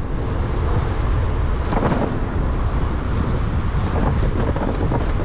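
Steady wind rumble on the microphone, with road noise, from riding an electric scooter through city traffic.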